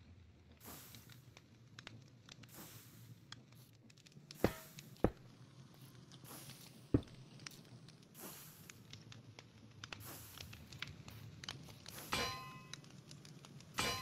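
Scattered clicks and knocks, with three sharp thumps about a third and halfway through. Near the end comes a single ringing metal clang that dies away.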